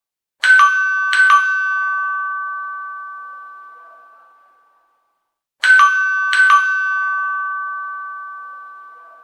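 High-pitched vintage doorbell chime ringing a two-note ding-dong, twice, about five seconds apart. Each pair of strikes leaves two high tones ringing and slowly fading away.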